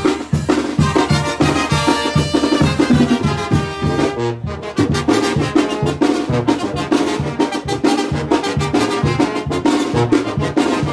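Traditional Zapotec jarabe played by a brass band: trumpets and trombones carry the tune over a steady low bass beat. The music breaks off briefly about four seconds in, then picks up again.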